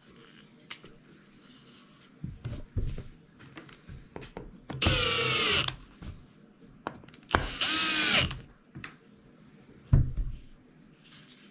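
Cordless drill running in two bursts of about a second each against a cedar piece, the motor whine sagging in pitch during the first. Light knocks of wood being handled come before, and a sharp knock follows near the end.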